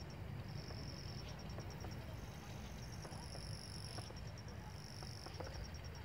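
Night insects chirping: a fast run of short, evenly spaced high chirps, broken by several high buzzing trills of about a second each, over a steady low rumble.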